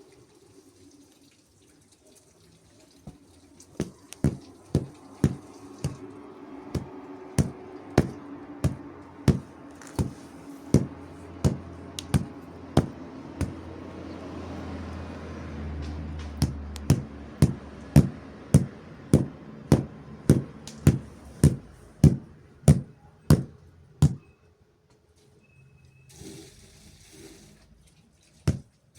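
Bedding being beaten to shake the dust out: sharp, regular strikes about two a second, pausing briefly in the middle while a rushing noise swells, then stopping a few seconds before the end.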